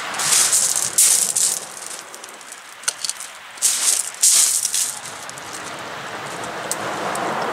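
Close-up rustling and scuffing from movement and handling right by the microphone, in bursts through the first second and a half and again around four seconds in, with a few sharp clicks near three seconds.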